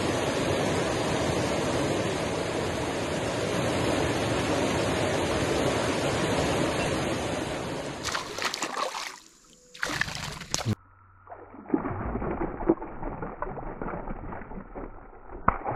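River rapids rushing as a steady wash of water for about eight seconds. Then short bursts of splashing as a hooked fish thrashes at the surface beside a kayak, with brief silent gaps between.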